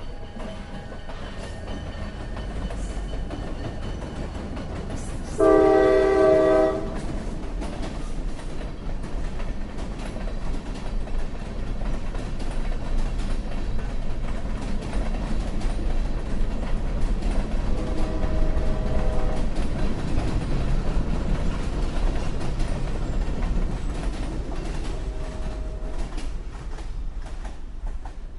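Diesel freight train led by an EMD SD70MAC and an SD40-2, rumbling steadily as it rolls past, with wheels clacking on the rails. A loud multi-note locomotive air horn blasts once for just over a second about five seconds in, and sounds again more faintly and briefly around eighteen seconds.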